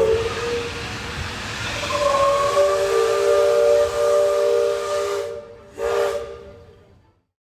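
Chime steam whistle blowing a chord of several tones: one long blast of about five seconds, then a short second blast, with a hiss of steam.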